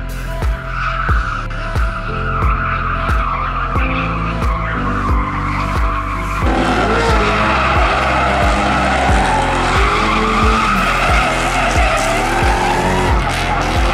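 V6 Ford Mustang drifting, its tyres squealing and skidding. From about six seconds in the engine is heard revving up and down. Background music with a steady beat plays over it.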